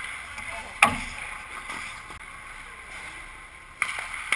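Ice hockey skate blades scraping and carving on the ice around the goal, with one loud sharp crack about a second in and two smaller knocks near the end.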